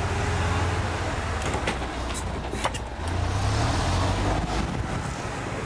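Golf cart running as it drives along, a steady low hum with noise over it, and a few sharp clicks or rattles about two seconds in.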